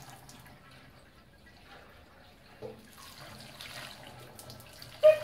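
Old petrol pouring from a Honda XL250 motorcycle fuel tank into a plastic funnel, with much of it splashing onto the concrete floor. A brief sharp sound near the end.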